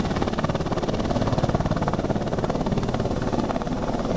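Sikorsky S-61 Nuri helicopter coming in to land, low and drawing closer: the rapid, steady chop of its five-blade main rotor over the sound of its twin turboshaft engines.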